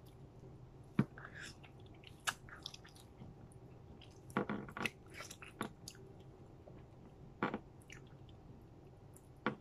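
A person chewing juicy grapefruit segments close to the microphone: soft wet mouth smacks and clicks at irregular intervals, with a cluster about four to five seconds in.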